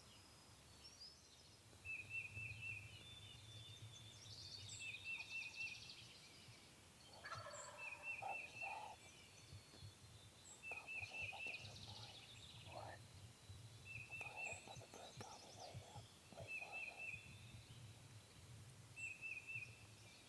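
Wild turkey gobblers gobbling faintly several times, rattling calls bunched in the middle of the stretch. Through it a small bird repeats a short high trill every two to three seconds.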